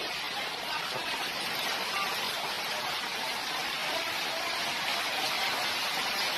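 Torrential rain in a violent windstorm, falling on paving and an awning as one steady, dense hiss.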